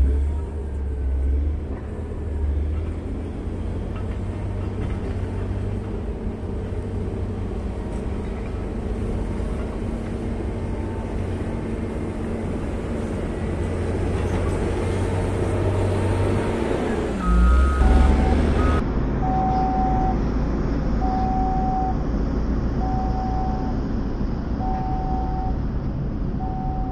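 Caterpillar 140M motor grader's diesel engine running steadily under work. From about two-thirds of the way in, its reversing alarm beeps about once a second as the grader backs up.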